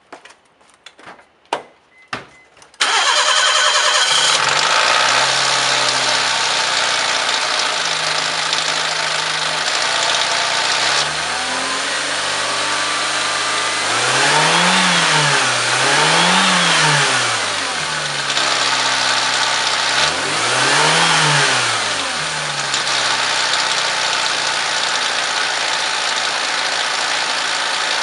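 A few sharp clicks, then a Daihatsu Copen's small turbocharged engine starts about three seconds in and idles. It is revved up briefly three times, each rev rising and falling, then settles back to idle. The owner is recording it for an abnormal engine noise.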